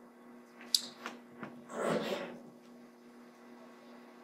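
Steady electrical mains hum, with a few faint clicks around the first second and a short breathy rustle about two seconds in.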